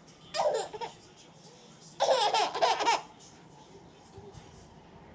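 Toddler laughing and squealing in two bursts: a short one near the start, then a longer, louder one about two seconds in.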